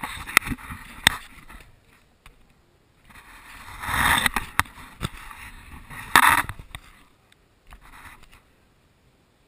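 GoPro camera being handled and shifted on a wooden floor: a few sharp knocks in the first second, then scraping and rubbing around four and six seconds in, and a softer scrape near eight seconds.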